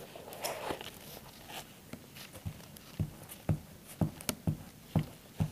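Glue being applied to paper with a glue stick: soft rustling as it rubs over the paper, then a run of short soft taps from about two and a half seconds in.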